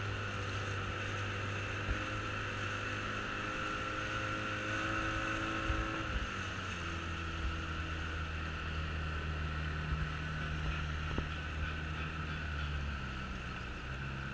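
Small motorboat's engine running under way, with water and wind rushing past the hull. The engine note drops about six seconds in and shifts again near the end.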